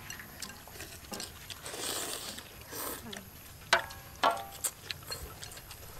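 Soup being ladled from a large metal wok into bowls, with soft liquid sounds and two sharp clinks of the metal ladle on the wok about two thirds of the way through.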